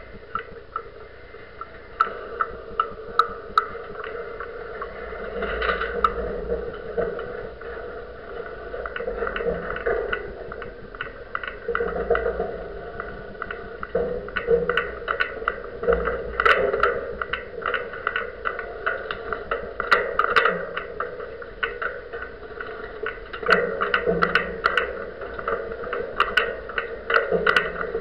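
A masthead camera and its mount vibrating and rattling as the sailboat sails in the wind: a steady drone that swells and fades every few seconds, with many irregular sharp clicks and knocks throughout.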